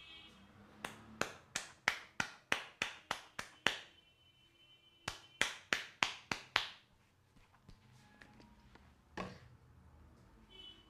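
A barber's hands striking in quick percussive massage strokes: a run of about a dozen sharp slaps at roughly four a second, a pause, a second run of about seven, then a single slap near the end.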